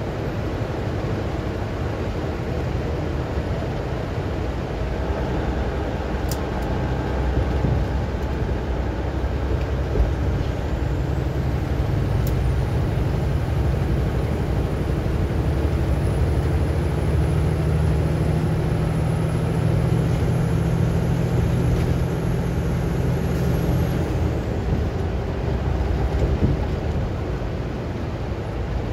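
Steady engine and road noise heard inside a vehicle's cab cruising at highway speed. A low drone strengthens about eleven seconds in and eases off again about twenty-four seconds in, with a faint high whine over the same stretch.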